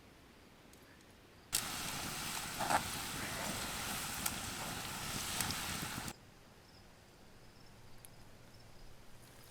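Cooking oil sizzling as French fries fry in it, a dense hiss with a few sharp pops; it cuts in suddenly about a second and a half in and stops suddenly about four and a half seconds later.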